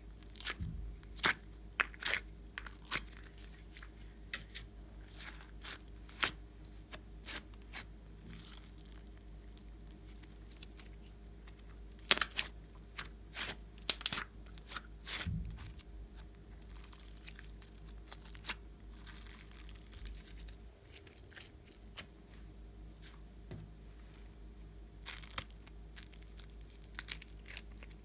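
Sticky slime being squeezed out of plastic tubs and worked by hand in a glass dish: irregular sticky crackles, clicks and tearing sounds as it is pressed and pulled apart, in a couple of denser runs.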